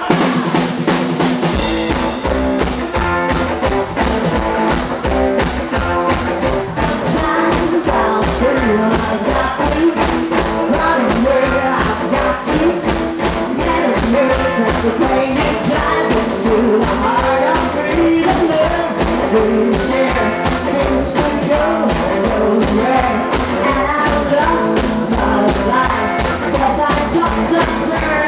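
Live rock and roll band playing: upright double bass, a Gretsch drum kit keeping a steady beat, hollow-body electric guitar, and a woman singing.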